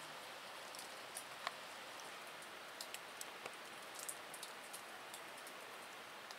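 Faint, irregular drips of water falling from the icicled rock overhang onto dead leaves and stone, about two light ticks a second over a steady hiss.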